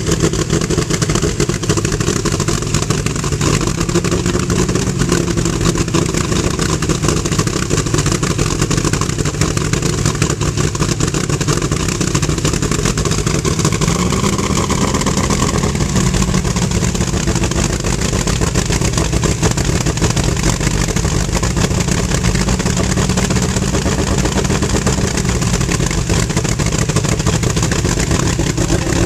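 De Tomaso Pantera's V8 engine running steadily through its exhaust. Its pitch steps up slightly twice and settles back lower near the end.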